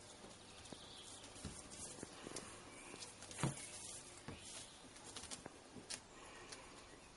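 Two kittens playing on a tiled floor: faint, scattered taps, scuffles and rustles of paws on the tiles and of a sisal rope being batted about, with one louder knock about three and a half seconds in.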